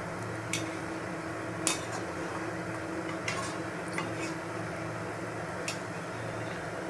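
Metal utensil clinking against a cooking pot, six sharp knocks spread irregularly, the loudest a little under two seconds in, over a steady low hum.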